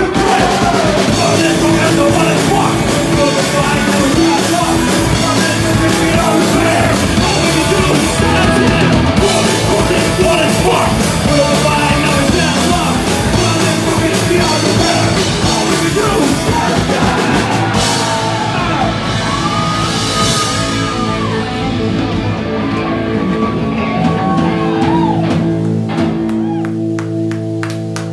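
Live punk rock band playing loudly: electric guitars, bass guitar and drum kit, with a singer. In the last couple of seconds the cymbals and high end drop out and a low chord rings on as the song ends.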